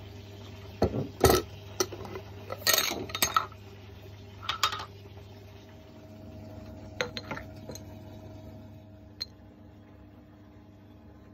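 Homebrewing gear being handled: clinks and knocks of glass and metal, several in quick clusters in the first five seconds, then a few lighter clicks and a single sharp tick later on. A steady low hum runs underneath.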